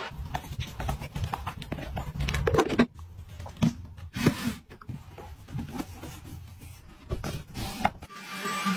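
Clicks, knocks and rubbing of plastic household items being handled and fitted together. A little before the end, the motor of a handheld bed vacuum cleaner starts and runs with a steady whine.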